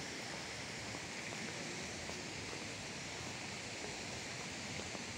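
Steady outdoor ambience of an open square: an even hiss with no distinct events.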